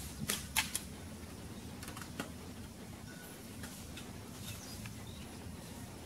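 Slingshot shots: sharp snaps as the band is released, three in quick succession in the first second and two more about two seconds in, over a steady low rumble of open-air background.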